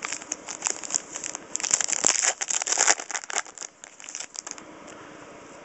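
Crinkling of a foil trading-card pack wrapper being torn open and handled: a dense run of small crackles that stops about four and a half seconds in.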